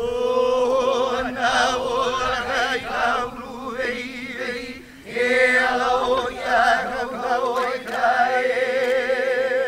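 Traditional Hawaiian hula chant: voices hold long notes on one pitch with a wavering vibrato. They break off briefly about five seconds in and then resume.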